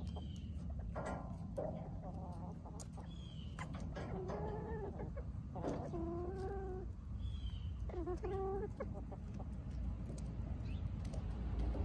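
Hens clucking, with three drawn-out calls in the middle and a few short high chirps, over a steady low rumble.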